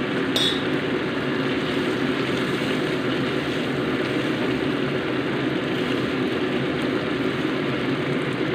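Seaweed simmering and bubbling in sauce in a nonstick frying pan, stirred with a wooden spatula, over a loud, steady rushing noise. A brief clink comes about half a second in.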